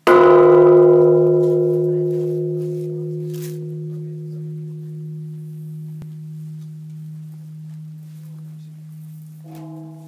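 Large bronze Japanese temple bell (bonshō) struck once with the swinging wooden log: a loud boom at once, then a long ringing hum that slowly fades. A fainter ringing tone joins near the end.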